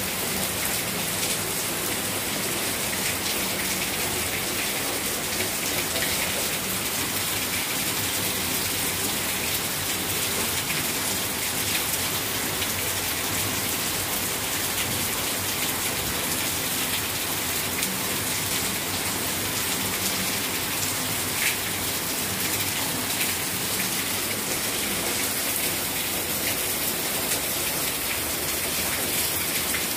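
Steady heavy monsoon rain, drops splashing on a wet floor and on potted plants.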